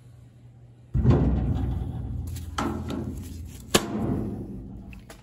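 The heavy metal hood of a Vermeer BC1500 drum chipper shuts about a second in with a loud thud that rings on and slowly dies away. Several sharper clanks and a crisp click follow as the hood is seated and its rubber latches are fastened.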